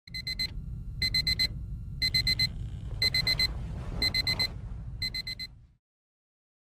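Electronic alarm beeping in quick bursts of four, one burst a second, six times, over a steady low rumble; it stops near the end.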